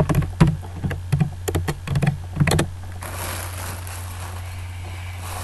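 A run of quick clicks and taps as a helium balloon is handled, then from about three seconds in a steady breathy hiss as helium is sucked in from the balloon's neck.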